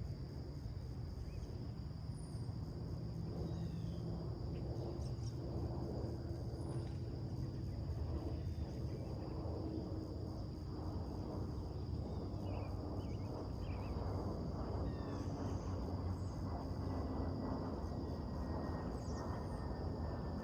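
Summer morning outdoor ambience. The loudest part is a steady low rumble with a faint humming drone in it. Over this sit a steady high-pitched whine and faint, brief bird chirps scattered throughout, and a slowly falling tone comes in near the end.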